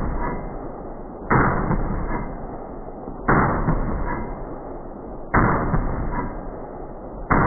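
FN SCAR 17S rifle firing .308 rounds: four shots about two seconds apart, each followed by a long echoing decay in the shooting bay.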